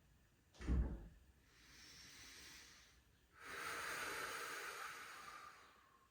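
A soft thump, then a person breathing: a quiet inhale followed by a longer, louder exhale of about two seconds.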